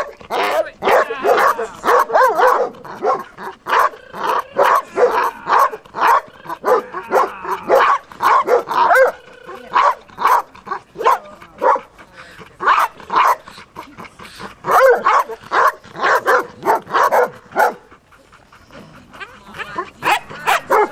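Doberman barking in rapid, repeated bursts, several a second, the excited barking of a dog worked up by a helper waving a burlap sack in bite training; it eases briefly near the end, then starts again.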